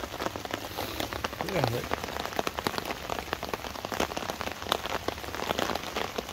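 Heavy rain falling steadily on a tarp overhead, with many large drops striking it sharply and irregularly.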